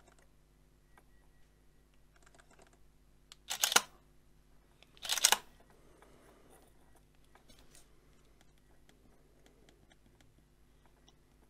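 DSLR shutter firing twice, about a second and a half apart, each a short sharp clack, with a few faint clicks of camera handling in between.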